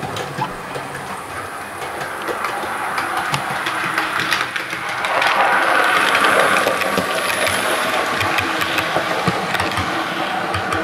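Model GWR pannier tank locomotive running on model track: the whir of its electric motor and gearing with quick clicks of wheels over rail joints, growing louder as it approaches and loudest about halfway through as it passes close by.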